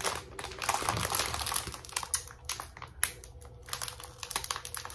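Clear plastic bags of diamond painting drills crinkling as they are handled, with many light clicks.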